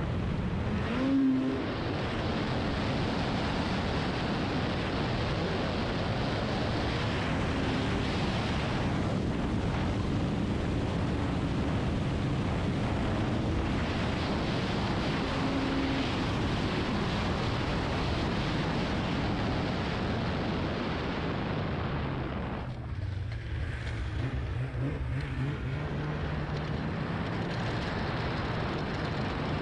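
Snowmobile running along a packed trail, a steady rushing noise of engine, track and air. About a second in there is a short louder burst with a rising note. About three-quarters of the way through the rushing drops away and a steadier, lower engine note comes through as the sled eases off.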